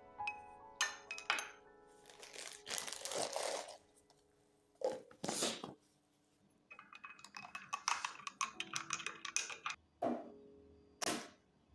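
Soft piano background music under a string of handling noises: sharp clicks and knocks, rustling and crinkling, and light clattering of objects being moved about.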